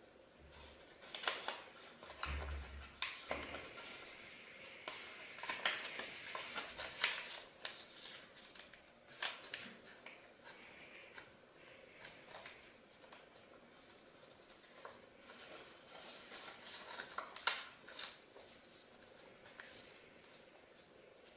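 Origami paper being folded and creased by hand: irregular crinkling and rustling, with a few sharper crackles about seven, nine and seventeen seconds in.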